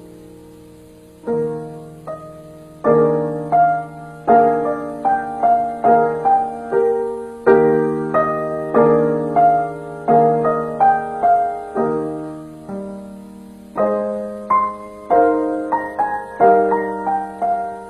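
Solo piano music: a slow, gentle piece of struck chords and a melody, each note fading after it is played. After a soft held chord the playing resumes a little over a second in and grows fuller from about three seconds on.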